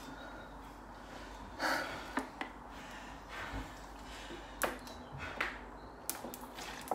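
A few short breaths out from someone winded by the workout, with scattered light taps and clicks.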